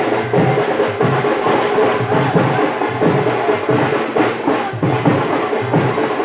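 Procession music with drums and percussion beating a steady rhythm over a held tone, from the crowd around the approaching festival chariot.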